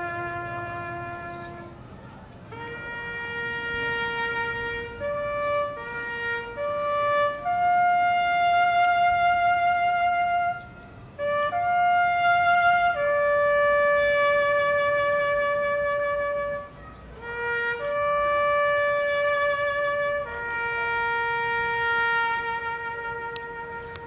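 A solo brass bugle sounds a slow military call of long held notes, stepping up and down among a few pitches, with two brief breaths between phrases.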